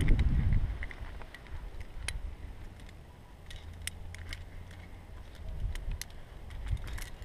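Climbing hardware, carabiners and quickdraws, clinking in scattered light clicks, over wind rumbling on the microphone that is strongest at the start and then dies down.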